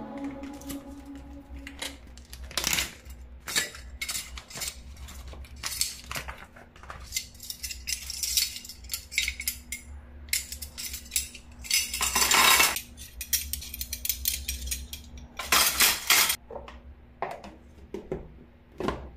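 Stainless steel forks and spoons clinking and tapping as they are handled and set into a plastic utensil storage box, in many short, light clinks, with two longer rattles as the cutlery is shifted about.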